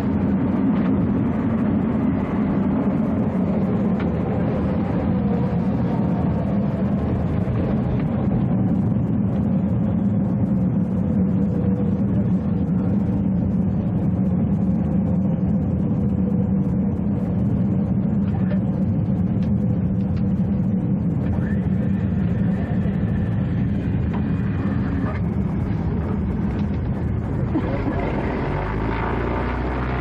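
Small propeller plane's piston engine running steadily, heard from inside the cabin as the aircraft rolls along a dirt airstrip. Near the end it gives way to a lower steady hum.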